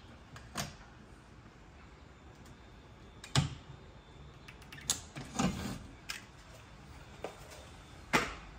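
Tools and mounting hardware being handled: about seven separate knocks and clicks, the sharpest about 3.5 s and 8 s in.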